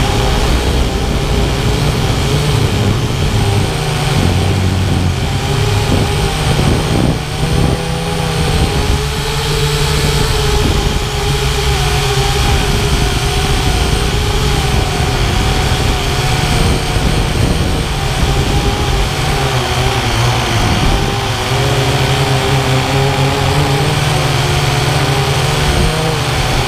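SkyMaster quadcopter drone's electric motors and propellers whirring steadily in flight, heard from the drone's onboard camera, with a whine that wavers slightly in pitch over a steady low rumble.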